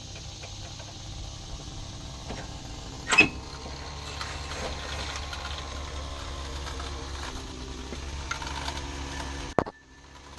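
Hand-tool work on metal: scattered small clicks and rattles, one loud clank about three seconds in and a sharp click near the end, over a steady low hum.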